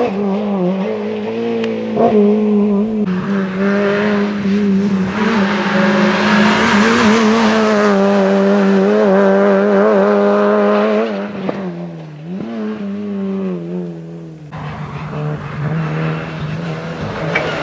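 Small rally hatchbacks, a Renault Clio and a Peugeot 106, driving past one after another with their petrol engines revving high and the pitch wavering through gear changes. Well after halfway the engine note drops as a car lifts off, and near the end another car is heard quieter and further off.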